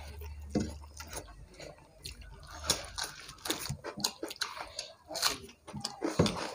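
Eating by hand: chewing, lip smacks and fingers mixing rice with chicken curry on plates, heard as irregular short wet clicks.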